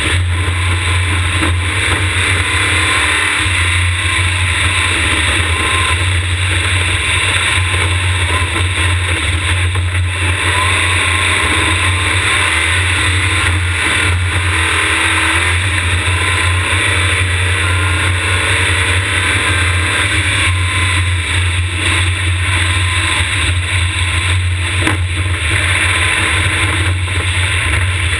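Open-wheel race car driven hard on a gravel road, heard from a camera mounted on the car: the engine under load, its note faintly rising and falling with the throttle, buried in a loud, steady rumble of wind and road noise.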